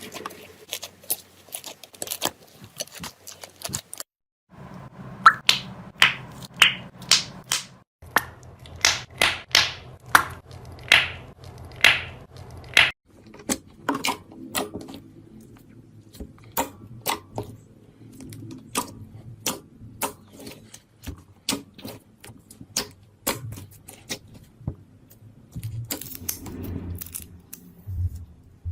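Slime being squeezed and pressed by hand, making a long run of sharp clicks and pops, loudest in the middle, with a few brief breaks.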